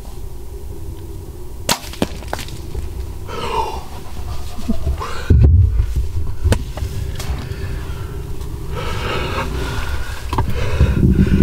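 A bow shot at a deer: a heavy low thump about five and a half seconds in, among scattered sharp clicks and rustling in the blind.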